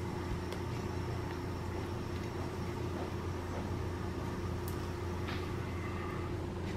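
Steady low mechanical hum of room ventilation in a small tiled bathroom, with a few faint clicks.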